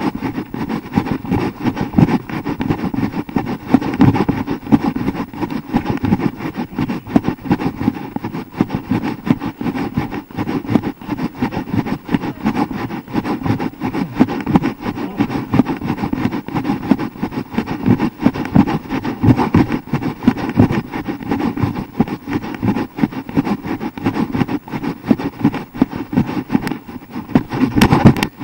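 Steady rough rumbling from wind and jostling on a running action camera's microphone, with a sharper knock near the end.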